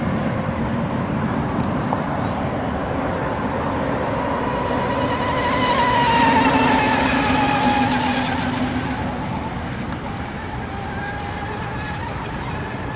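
Radio-controlled race boat running at speed, its motor whine swelling as it passes close about six seconds in and dropping in pitch as it goes by, then fading to a steadier, quieter drone. A hiss of water spray runs under it.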